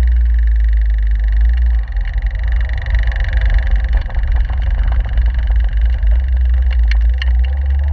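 Caterham 7 running on the move, heard from inside the open cockpit, with a heavy, steady rumble from wind buffeting the microphone. A few short clicks come about seven seconds in.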